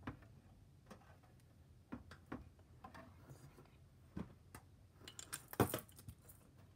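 Fidget toys handled close to the microphone: scattered light clicks and taps, with a quick cluster of louder clicks about five and a half seconds in.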